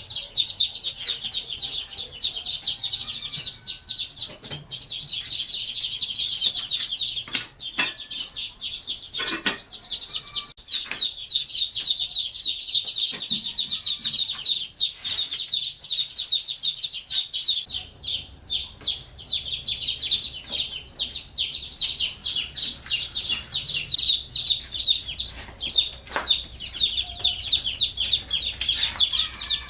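A brood of chicks peeping continuously, many high, quick calls overlapping, with a few brief knocks along the way.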